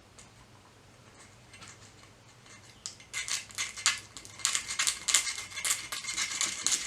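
Quick scraping strokes on the strut tower, cleaning off a spot where a rubber seal was glued; they start about three seconds in and go on in a fast, irregular run.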